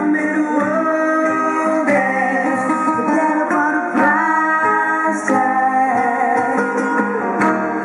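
Live acoustic band playing, with guitar, other instruments and some singing.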